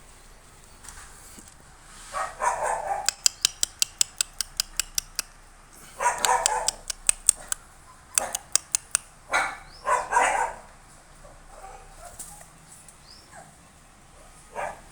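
Four-week-old Combai puppies barking in three short bursts, with runs of quick sharp clicks, about five or six a second, in between.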